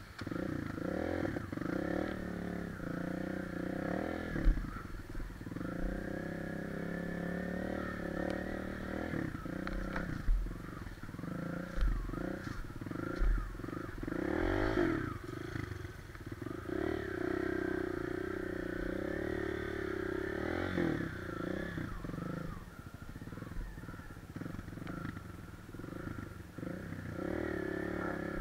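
Trail motorcycle engine running while the bike is ridden along a rough dirt track, its pitch rising and falling with the throttle. A few sharp thumps stand out, the loudest about four, ten, twelve and thirteen seconds in.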